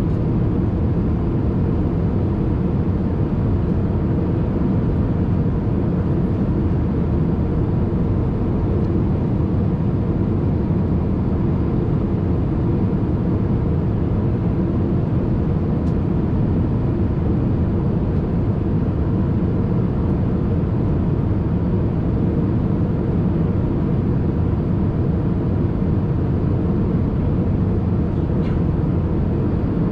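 Steady low drone of engine and air noise inside the cabin of an Airbus A380-800 airliner, unchanging throughout.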